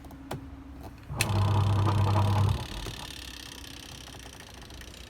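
A washing machine clicks, then gives a steady electrical hum for about a second and a half that cuts off abruptly, leaving a faint steady hiss.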